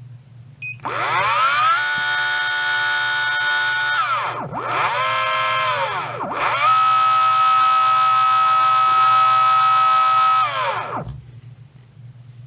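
Surpass Rocket V6 17.5T brushless motor spun up unloaded by a Hobbywing Tunalyzer test, with its timing advanced 5 degrees. It makes a high whine that rises about a second in and holds steady, dips and rises twice in the middle, holds steady again, and winds down near the end.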